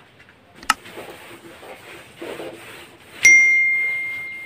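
A subscribe-button animation's sound effects: a short mouse click about a second in, then a single bell ding about three seconds in, one clear tone that rings out slowly. Between them, a duster rubs faintly on a whiteboard.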